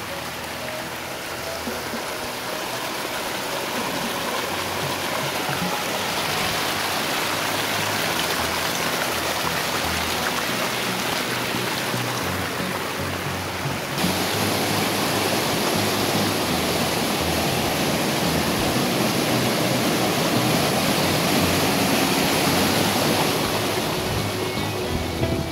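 Water rushing and splashing down a small cascade over mossy travertine steps, a steady rush that grows slowly louder. About halfway through it switches abruptly to a brighter, louder rush.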